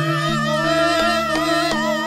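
Javanese gamelan gending playing: sustained ringing metallophone tones under a high, wavering melody line, with regular drum strokes keeping the beat.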